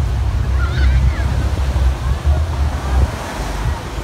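Wind buffeting the microphone in a loud, uneven low rumble over the wash of surf, with a few faint high calls about a second in.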